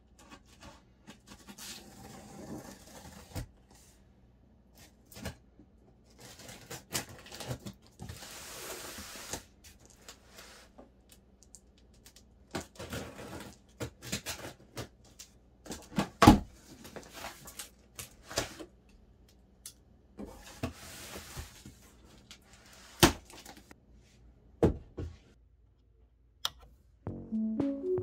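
A knife slitting the packing tape on a cardboard shipping box, with cardboard scraping and rustling, scattered clicks and several sharp knocks as the box is handled. Music starts near the end.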